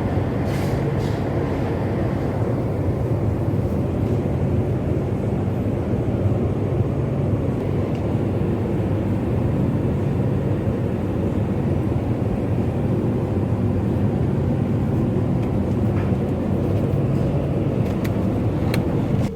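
Steady low rumble of a vehicle in motion, even throughout, with a few faint clicks near the end.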